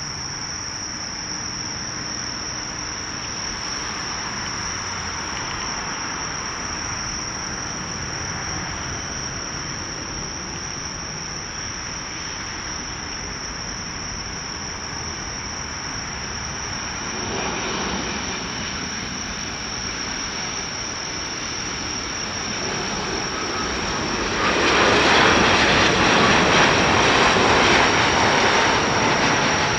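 Jetstar Boeing 787 jet engines on final approach to landing, a steady rush that swells briefly about halfway through and grows loudest over the last five seconds as the airliner passes low and close. A steady high-pitched cricket trill runs underneath.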